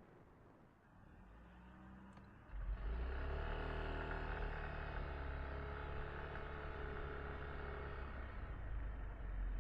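Yamaha Tricity 155 scooter's single-cylinder engine running, growing suddenly louder about two and a half seconds in and then holding a steady note.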